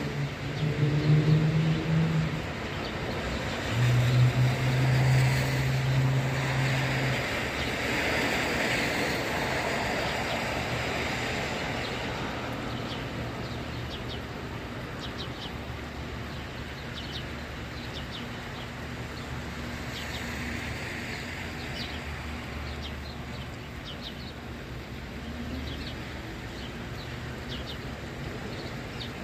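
Road traffic on a wet street: vehicle engines drone and pull away over a steady hiss of tyres on wet pavement, loudest in the first several seconds. Short high bird chirps come through in the middle, and another vehicle speeds up near the end.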